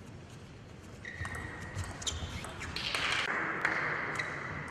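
Table tennis serve and rally: the plastic ball ticking off the paddles and table in a quick, irregular series of sharp clicks.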